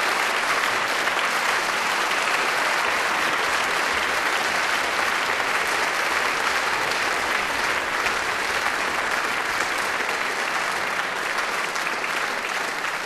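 Large audience applauding: dense, steady clapping that eases off slightly near the end.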